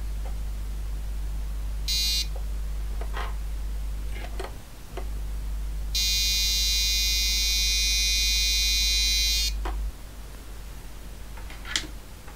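Laser harp kit's buzzer sounding a short electronic tone about two seconds in, then a longer steady tone for about three and a half seconds from around six seconds, triggered as a laser beam is interrupted. A low steady hum underneath stops near ten seconds, with a few light handling clicks.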